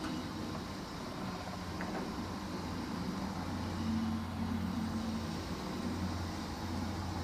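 A steady low motor hum over a general outdoor noise bed, growing a little stronger about halfway through.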